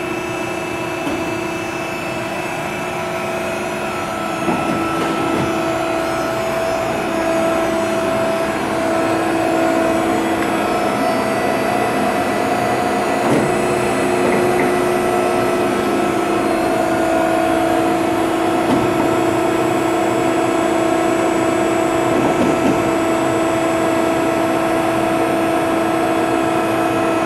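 Faccin 4HEL3128 four-roll plate bending roll running under power: a steady machine hum with two held tones that shift slightly a few seconds in and again near the middle, with a few faint clunks.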